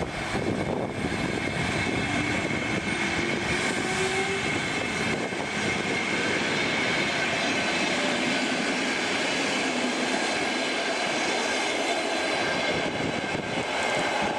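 Electric commuter train of old blue subway-type cars passing close by and running away along the track: steady rail and wheel noise with a whine from the electric traction motors, several high steady tones and a faint rising one a few seconds in.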